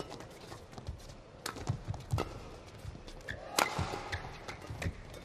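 Badminton rally: several sharp cracks of rackets hitting the shuttlecock, with players' shoes thudding and giving short squeaks on the court.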